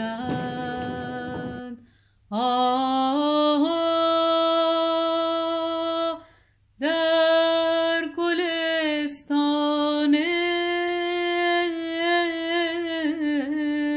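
A solo voice singing slow, long-held notes in three phrases separated by short pauses. In the first second or two it is heard over a noisier, rougher backing that then drops out.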